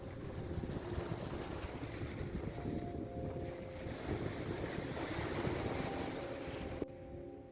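Sea surf washing on the shore, with wind buffeting the microphone as a low rumble; the sound changes abruptly about seven seconds in.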